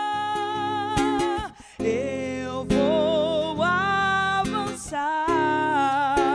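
A woman singing a worship song into a microphone, holding long notes with vibrato in three phrases with short breaks about 1.5 and 5 seconds in. She is accompanied by a classical acoustic guitar strumming chords.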